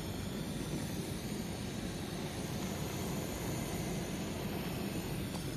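Handheld gas blowtorch burning steadily with an even rushing hiss, its flame played on a dimpled stainless-steel heat-shield wrap.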